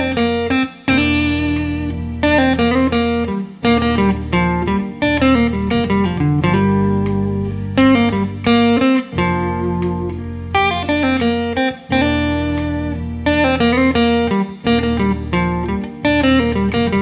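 A lead guitar solo, single notes played one after another, over a backing jam track whose sustained low notes change every few seconds.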